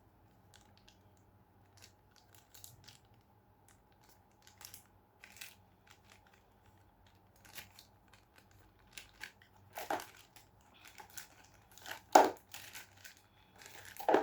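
Packaging crinkling and rustling as it is handled, in short scattered crackles that grow louder over the last few seconds.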